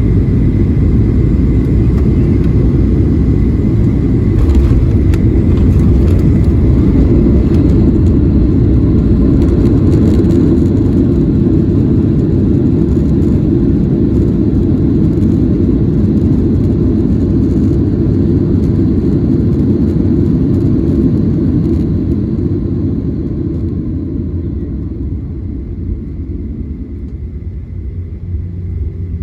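Cabin noise of a Boeing 737-900 landing rollout. A loud, steady low rumble, with a few brief knocks about four seconds in, eases off over the last several seconds as the aircraft slows.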